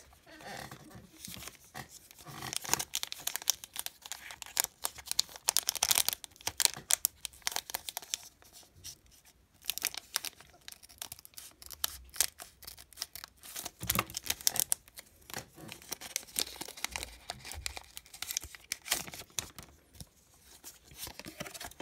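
Foil wrapper of a Pokémon booster pack crinkling and crackling as it is handled and cut open across the top with scissors, then the cards being handled out of it. There is a short lull about halfway through.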